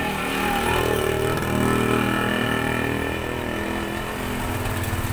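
A vehicle engine running close by on the street, growing louder over the first two seconds and then easing off a little.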